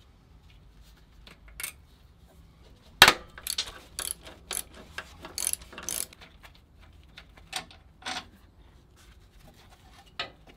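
Hand tools undoing the clutch slave cylinder and bracket bolts on the gearbox: irregular metallic clicks and clinks of a spanner or ratchet. There is one sharp metal knock about three seconds in and a run of clicks after it.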